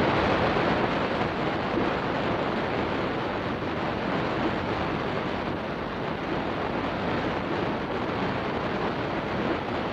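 Loud, steady rushing noise with no distinct events.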